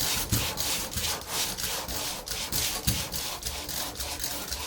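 Hand sanding of body filler with 40-grit sandpaper: a rapid, even rasping of back-and-forth strokes, about four or five a second. The filler is sanded while still tacky on the surface, so it comes off in little wet rolls rather than dust.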